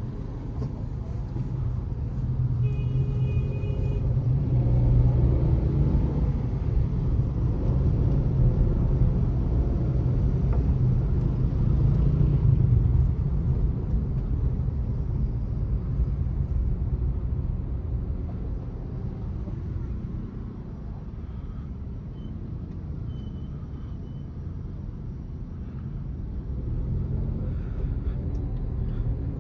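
Cabin noise of a Suzuki Alto VXL AGS with its 660 cc three-cylinder engine under way: a steady low engine and road rumble that builds over the first dozen seconds, eases around twenty seconds in and picks up again near the end. A brief horn sounds about three seconds in.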